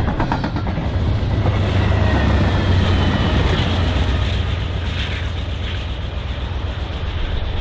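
A BNSF double-stack intermodal freight train passing close, its wheels clattering over the rails. Diesel locomotive engines drone low as the locomotives go by, with a thin high whine from the wheels on the rail in the middle of it.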